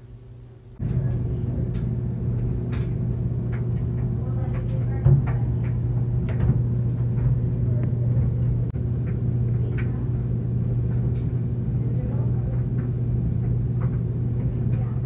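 A steady low rumble starts suddenly about a second in, with light clicks scattered over it.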